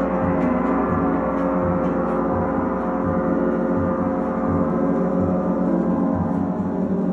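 Gongs ringing in a sustained, shimmering wash of overlapping tones. Soft low beats pulse underneath about once or twice a second.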